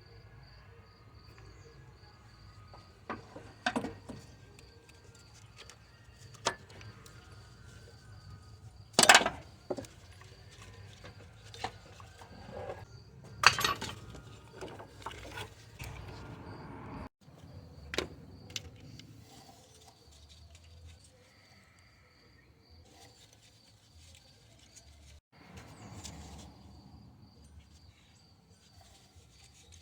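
Intermittent metallic clinks and knocks of hand tools working under a car's engine bay while the serpentine belt is taken off, with two louder knocks about nine and thirteen seconds in. A faint steady high chirping runs underneath.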